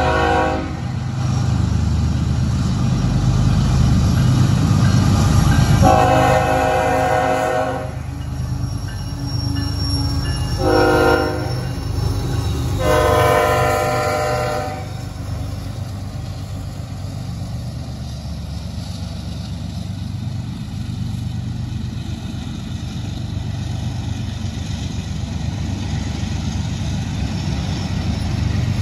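A freight train's locomotive horn sounds the grade-crossing pattern: a long blast ending at the start, then a long, a short and a final long, over the low rumble of the GE Evolution-series diesels as they come past. From about halfway, the sound settles into the steady rolling of loaded tank cars going by.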